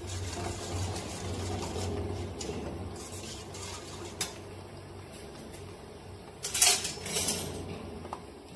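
Batter-coated chicken pieces frying in hot oil in a steel pan, with a metal spoon knocking against the steel pans: a sharp clink about four seconds in and a louder clatter near seven seconds.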